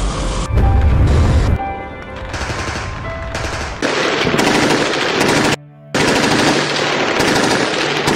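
Machine-gun fire in long, rapid bursts that cut off suddenly, with a deep low rumble of a blast about half a second in. Background music with held notes plays underneath.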